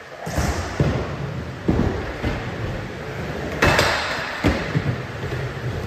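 Skateboard wheels rolling on a smooth skatepark floor and ramp with a low, steady rumble, broken by a series of sharp clacks and knocks from the board, the loudest a little past halfway.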